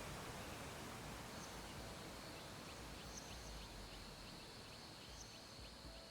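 Faint steady background hiss, joined about a second in by a thin, steady high-pitched trill and a row of quick, faint chirps repeating a few times a second.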